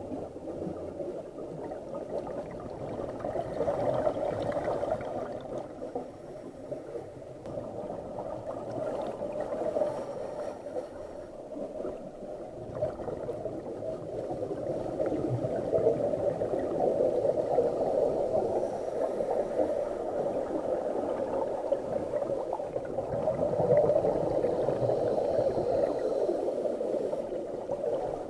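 Muffled, steady gurgling water noise picked up underwater through a camera's waterproof housing, swelling and easing slowly.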